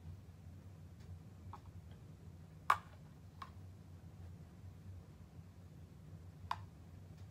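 A handful of short, light clicks and taps of a plastic spoon against clear bowls as cotton balls are scooped from one bowl to the other, the loudest about two and a half seconds in. A low steady hum lies underneath.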